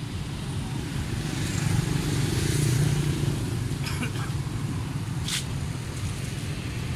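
Low engine rumble of a motor vehicle, growing louder about two to three seconds in, with two short sharp clicks later on.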